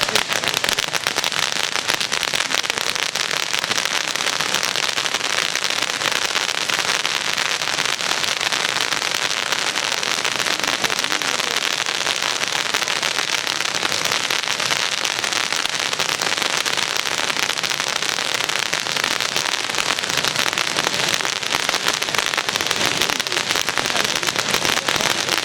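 Fireworks crackling in a dense, unbroken stream of fine pops that holds steady throughout.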